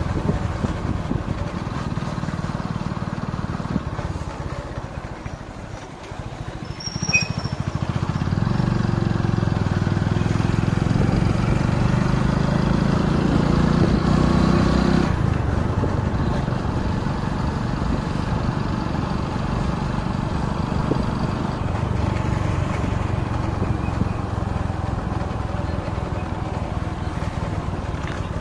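Motorcycle running on the move, with wind and road noise. A stronger engine tone comes up about eight seconds in and drops away suddenly about halfway through.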